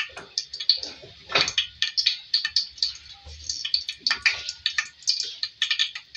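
Whole spices (cinnamon, cloves, green and black cardamom) frying in hot oil in a steel pot, crackling with irregular sharp pops several times a second.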